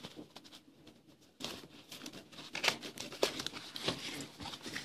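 A cardboard retail box being opened by hand: rustling, crinkling and light clicks of the packaging, starting about a second and a half in.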